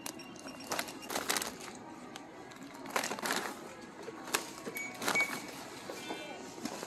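Plastic snack bags crinkling and rustling in irregular bursts as they are handled and set into a shopping cart, over a low background hum of the store.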